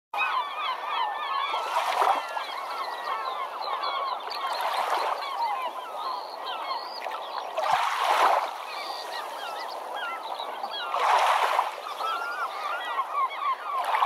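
A dense chorus of many birds calling at once, like a flock. A rushing noise swells and fades four times, about every three seconds.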